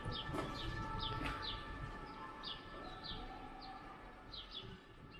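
Birds chirping: short falling chirps, about two a second, over a low steady rumble of outdoor background noise.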